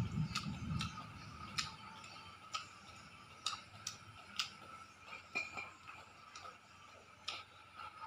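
Eating by hand from a ceramic plate: irregular sharp clicks and smacks of chewing and of fingers working rice against the plate, over a faint steady high hum.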